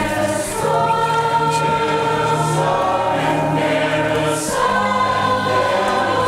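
Mixed choir of men and women singing in harmony.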